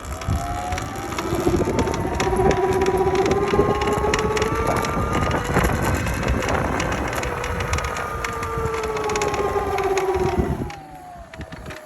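Sur-Ron electric dirt bike's motor whining, rising in pitch, holding, then falling away, with the whine dropping out about eleven seconds in. Irregular clicking runs through it all the while: a persistent click the owner cannot diagnose, which makes the bike sound like it is going to fall apart.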